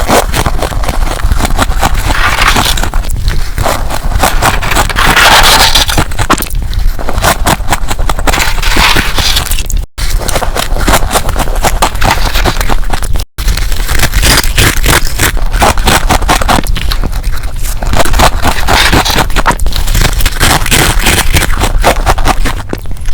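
Thick freezer frost being scraped and crunched close to the microphone: dense, loud crackling and scraping with fine clicks, broken by two brief sudden drop-outs around the middle.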